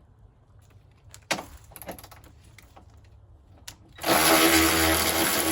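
A few light tool clicks and knocks, then about four seconds in a power drill starts and runs steadily, spinning a socket to back out a bolt.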